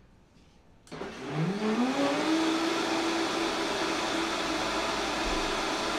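Electric blender switched on about a second in, its motor whine rising in pitch as it spins up, then running steadily as it blends a liquid sauce.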